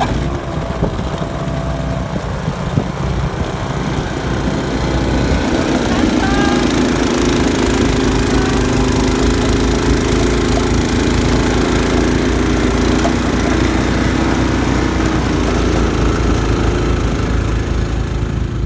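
An engine running steadily, growing louder about five seconds in.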